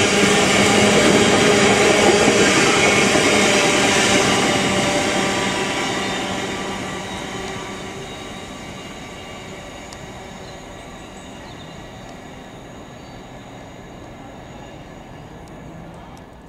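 Freight train passing: loud at first, then fading away over a few seconds to a fainter steady rumble with a hum of steady tones, before the sound cuts off abruptly at the end.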